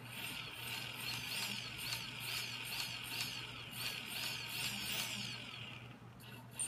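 Small 1804 2400kv brushless quadcopter motors spinning at low throttle, driven by KISS 18A and SimonK 12A ESCs. They make a high-pitched electronic whine whose pitch rises and falls about twice a second, then dies away about six seconds in.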